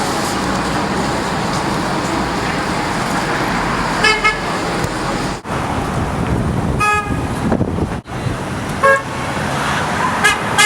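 Car horns honking in short toots, about four times, over the steady noise of passing road traffic.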